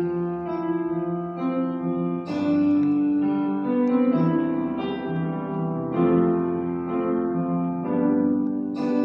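Slow instrumental music on a piano-like keyboard, with sustained chords changing every one to two seconds.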